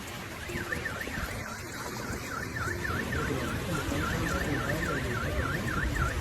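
A car alarm sounding, its tone sweeping rapidly up and down about three to four times a second, over a steady wash of noise.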